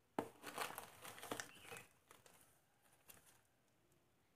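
A sharp click, then clear plastic packaging bags crinkling and rustling in short bursts for about a second and a half.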